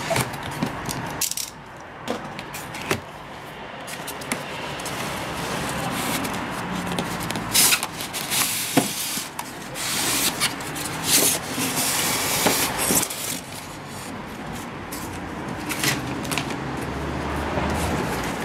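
Unboxing handling noise: the plastic shrink-wrap on a cardboard drone box being cut and pulled off, then the box opened and its foam packing tray slid out and handled. Continuous crinkling, rubbing and scraping, broken by many short sharp rustles.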